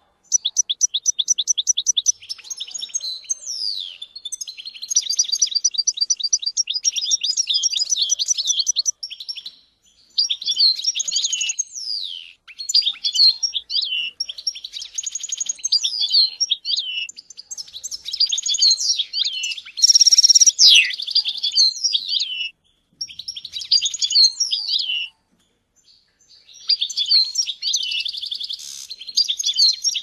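European goldfinch singing: long runs of rapid twittering, fast repeated notes and trills, broken by a few short pauses.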